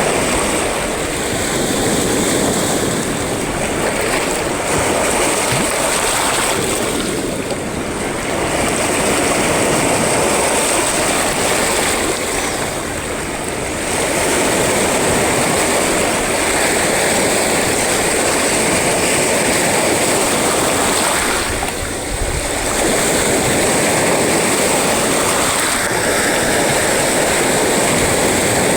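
Sea surf: waves breaking and washing in as one constant rush, easing off briefly three times.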